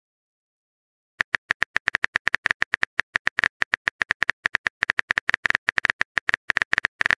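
Phone keyboard typing sound effect: rapid short key-tap clicks, about eight a second, starting about a second in as a message is typed out.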